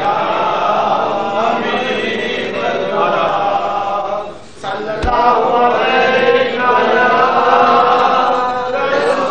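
Crowd of men chanting together, many voices overlapping in devotional chant. About halfway through, the chant drops away briefly, then comes back with a short low thump.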